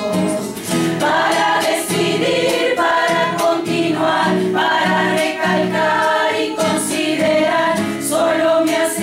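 Mixed choir singing a folk song in several voice parts, with guitar accompaniment.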